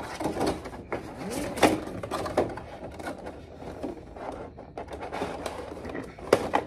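Cardboard figure box being opened by hand: the end flap is worked open with steady rustling and scraping, broken by several small knocks, the sharpest about a second and a half in and again near the end.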